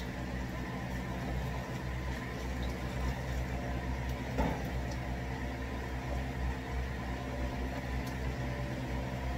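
Steady low machine hum, with a light knock about four and a half seconds in.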